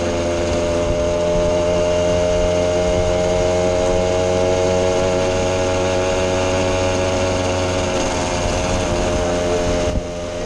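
Small two-stroke engine of a vintage moped running steadily at cruising speed, heard from the handlebars. About eight seconds in the pitch eases a little as the throttle comes off, and there is a short dip in loudness near the end.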